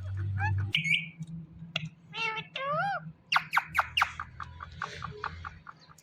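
Indian ringneck parakeet calling: a harsh squawk about a second in, a couple of whistled calls that bend up and down, then a quick run of short, sharp squawks.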